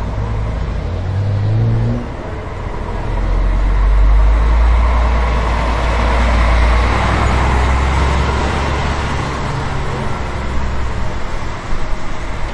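Steady low rumble with a hiss over it, street noise like road traffic, swelling from about three to seven seconds in.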